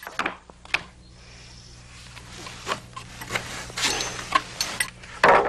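A wooden rafter board being handled and shifted: scattered wooden knocks and scraping, then a louder clatter near the end as the board is set down. A faint steady low hum runs underneath and stops just before that clatter.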